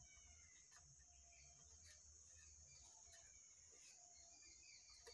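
Near silence: faint room tone with a steady high hiss and a few soft ticks.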